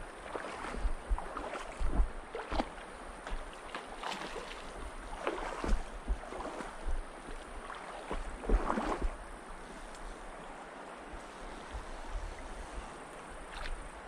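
Shallow mountain stream running over cobbles, with irregular louder splashy moments and occasional low wind buffets on the microphone.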